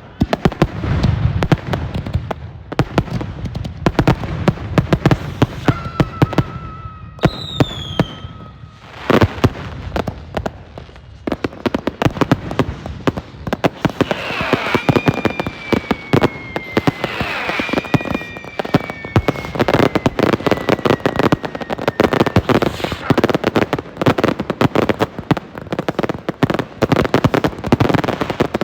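Dense rapid barrage of firework and firecracker bangs and crackling, with one heavier bang about a third of the way in. Whistling fireworks sound over it, their whistles slowly falling in pitch, briefly near the quarter mark and again through the middle of the barrage.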